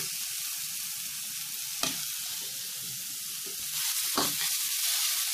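Chopped pumpkin leaves and okra sizzling in hot mustard oil in a kadhai as they are stirred, a steady frying hiss. Two knocks come through, about two seconds in and again about four seconds in.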